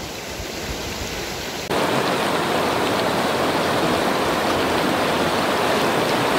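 Fast mountain river rushing over rocks, a steady noise of white water. About two seconds in it cuts abruptly to a closer, louder rush of the rapids.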